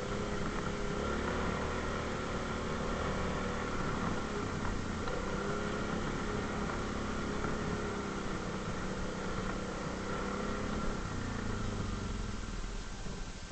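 ATV engine running steadily, its note changing about eleven seconds in.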